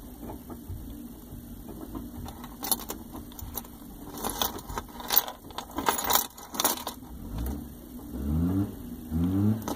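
Keys and metal key-ring parts on a Mercedes smart-key fob jangling and clicking as the fob is handled and turned in the hand. Near the end come two short low sounds that rise in pitch.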